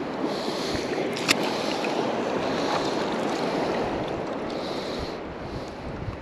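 Choppy shallow sea water sloshing and lapping around a wader and his push net, a steady rushing wash with soft surges every couple of seconds, and wind on the microphone. A single sharp click about a second in.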